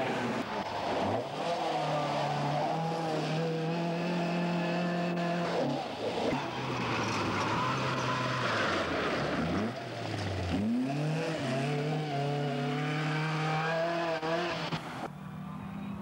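Ford Escort rally car's 1600 cc stage 3 engine at full chatter, held at high steady revs, dropping away twice and climbing back with a rising sweep. Near the end the sound cuts to another run of the car.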